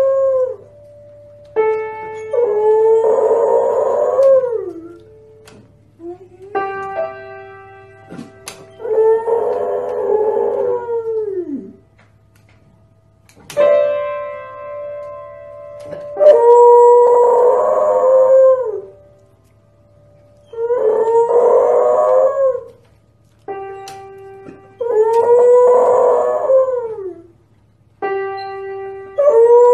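Beagle pressing piano keys with its front paws and howling along: a few piano notes ring out, then a long wavering howl that drops in pitch at its end, the pattern repeated about six times.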